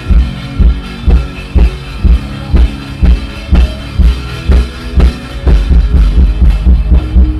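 Music driven by a heavy bass drum beating about twice a second, with sustained pitched notes above it. About five and a half seconds in the beat gets denser and louder.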